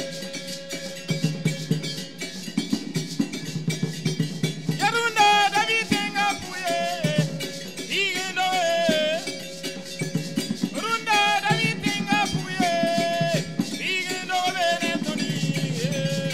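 Traditional Burkinabè music: drums and gourd rattles play a steady, dense rhythm. From about a third of the way in, a group sings short repeated phrases over it.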